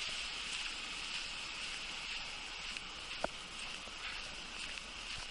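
Footsteps crunching softly in light snow over a steady high hiss, with one sharp click about three seconds in.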